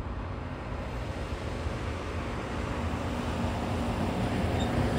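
Medium-duty dump truck driving closer, its engine and tyre noise growing steadily louder.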